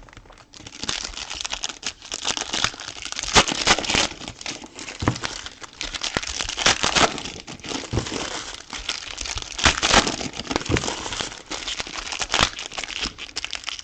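Plastic and foil wrapping on a box of trading cards crinkling and tearing as it is opened, with dense crackling and many sharp rustles.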